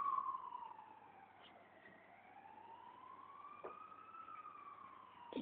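A siren wailing, its pitch slowly rising and falling about once every four seconds. It is louder at first and fades after about a second.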